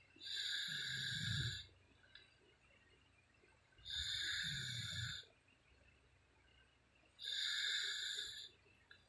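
A woman snoring in her sleep: three snores about three and a half seconds apart, each lasting just over a second.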